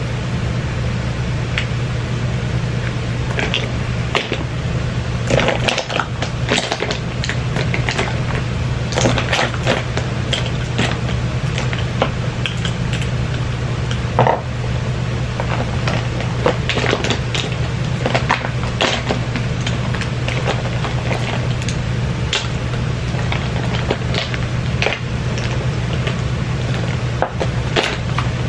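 Irregular clicks, taps and light knocks of plastic makeup containers being handled, opened and set down, over a steady low hum.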